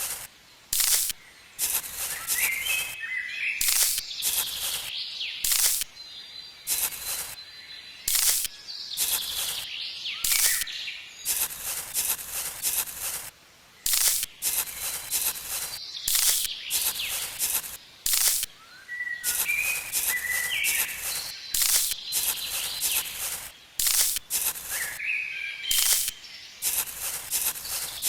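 Birds chirping: a dense, irregular run of short, sharp, high-pitched chirps, with a few longer chirping calls at intervals.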